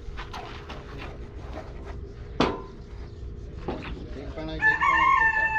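A sharp knock about two seconds in among lighter clanks and taps, then a rooster crowing near the end, one long held call that drops slightly as it ends.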